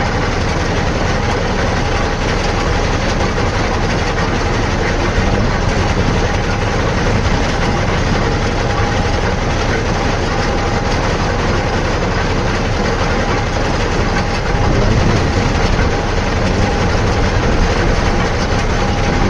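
Heavy machinery engine running steadily, with a constant tone over a dense rumble that gets a little louder about three quarters of the way through.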